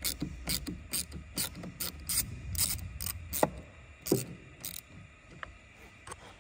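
A hand ratchet clicking in quick irregular runs as it loosens the clamp nut on the battery's negative terminal to disconnect the battery. The clicking stops about five seconds in.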